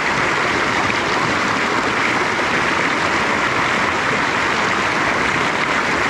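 Fast river running over boulders: a steady, dense rush of water with no pauses.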